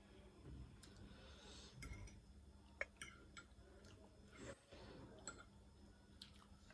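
Faint eating sounds: scattered mouth clicks and soft chewing, with a couple of brief breaths or slurps, over a low steady hum.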